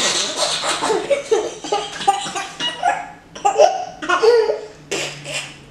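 A young girl laughing in a run of bursts, a long fit at first, then shorter bursts.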